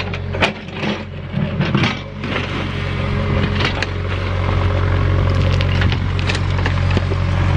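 Excavator engine running steadily, a little louder in the second half, while the bucket scrapes and cracks through rock and gravel with many sharp knocks and crunches.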